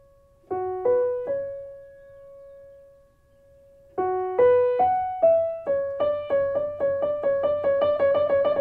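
Solo piano music. A short rising three-note figure sounds about half a second in and its last note is held. The figure comes again about four seconds in, then runs into one note repeated quickly, about three times a second.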